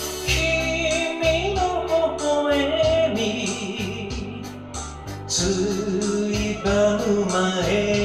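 A man singing a slow Japanese pop ballad into a handheld microphone over a karaoke backing track with a steady beat, holding long notes that waver.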